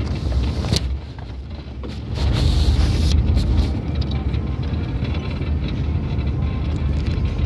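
Low rumble of a Chevy Blazer's engine and road noise inside the moving cabin. It dips slightly about a second in and builds again about two seconds in, with a brief rustle around two to three seconds.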